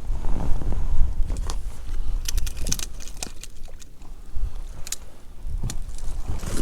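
Wind buffeting the microphone in a steady low rumble, with a scatter of sharp clicks and light knocks about two to three seconds in and again around five seconds.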